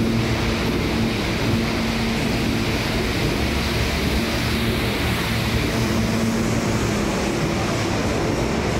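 New York City subway train running along the tracks: a steady roar of wheels on rail with a low, steady hum underneath.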